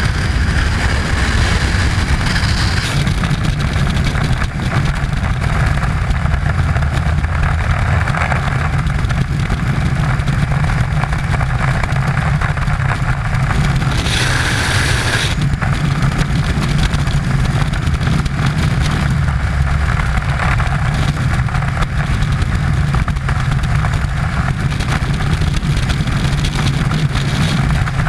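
Freefall wind at terminal velocity buffeting a helmet-mounted camera's microphone: a loud, steady rush with a deep rumble, briefly brighter and hissier about halfway through.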